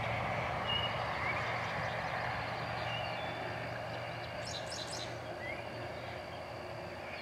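Steady rural outdoor background noise with a low hum, with several short bird chirps scattered through it and a brief high trill about four and a half seconds in.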